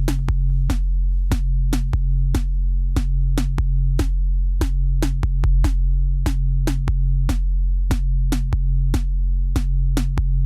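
Background music: electronic track with a steady bass line and a drum-machine beat.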